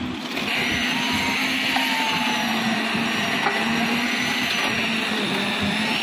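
Diesel-engined concrete mixer running steadily, with a continuous whirring rush of concrete churning in its drum and sliding down its chute.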